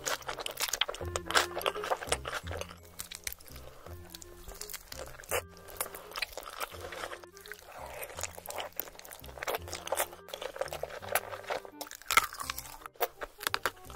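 Close-miked eating of glazed roast chicken: biting and chewing with many sharp crunches and crackles, over background music with a steady bass line.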